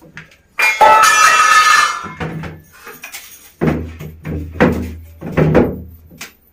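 Stainless steel utensils clattering and ringing as they are dropped into the tub of a twin-tub washing machine, followed by several more clanks over a low hum.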